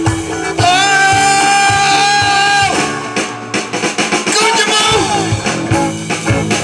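Live band playing: singing over electric guitar and a drum kit, with one long held note in the first two seconds.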